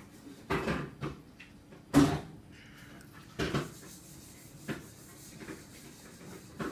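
Four or five short knocks and clatters about a second apart, the sharpest about two seconds in.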